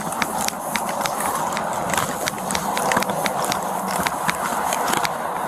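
A police officer's footsteps, with clicks and knocks of carried gear, picked up close by a body-worn camera over a steady hiss. The taps come irregularly, a couple of times a second.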